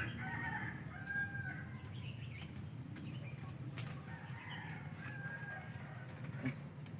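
Leaves and twigs of a kedondong (ambarella) tree rustling and snapping as fruit is picked among the branches, with a few sharp clicks. Faint birds call in the background.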